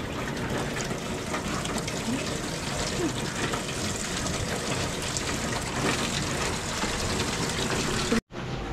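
Steady rain, an even rushing hiss of water, which cuts out for a moment near the end.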